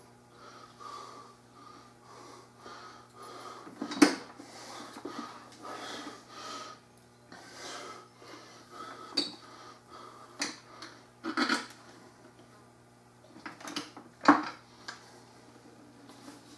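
Plastic and metal parts of an electric pressure washer being handled during assembly: the unit is tipped over and a wheel fitted, with several sharp knocks and clatter, the loudest about four seconds in and near the end. A low steady hum runs underneath.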